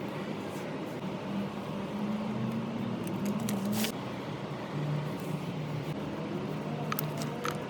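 A steady low hum with a background hiss, with a few light, sharp clicks about three and a half seconds in and again near the end.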